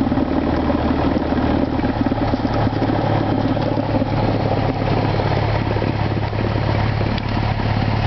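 Single-engine Cessna's piston engine idling steadily as the plane taxis, heard from inside the cabin.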